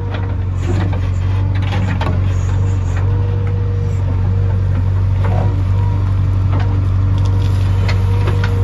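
JCB backhoe loader's diesel engine running steadily under the cab, with a steady whine over it and a few light knocks as the backhoe arm works.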